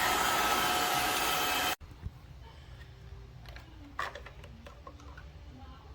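Tineco Floor ONE S5 cordless wet-dry vacuum running with a steady whirr, then shutting off abruptly a little under two seconds in. After that come a few light clicks and knocks.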